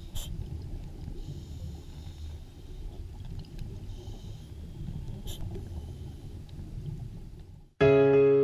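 Low, steady underwater rumble picked up by a diving camera in its housing, with a few sharp clicks and two hisses of about a second each. Piano music starts near the end.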